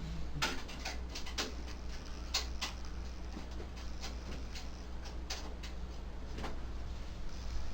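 Irregular light clicks and taps of cable plugs and connectors being fitted to a desktop computer while it is hooked up, over a steady low hum.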